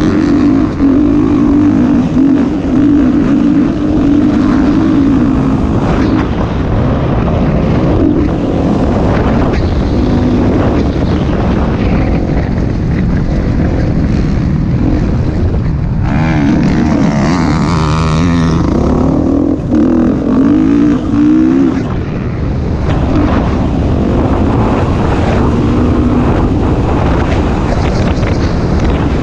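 Motocross bike engine running hard on the track, revving up and down, with its pitch swinging most a little past halfway. Wind rushes over the microphone, with a burst of rushing noise in the same stretch.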